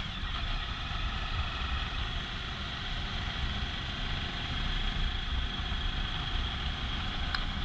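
Motorcycle under way at a steady pace: a steady mix of engine rumble, road noise and wind on the microphone.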